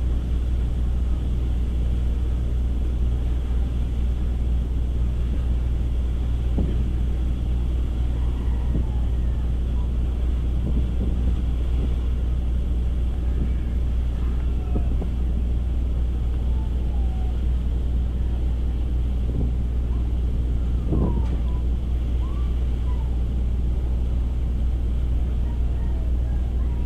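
Steady low engine drone, typical of a ship's engines, running evenly throughout, with a few faint short chirps or squeaks.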